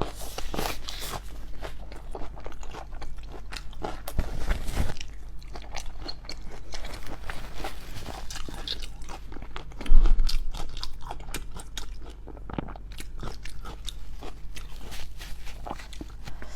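Close-miked eating of raw shrimp: irregular crunching bites and wet chewing throughout, with one much louder sudden hit about ten seconds in.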